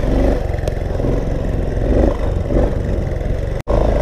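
Dirt bike engine running at low speed over rough, rutted ground, the throttle opened and closed a few times so the pitch rises and falls around the middle. The sound cuts out for an instant near the end.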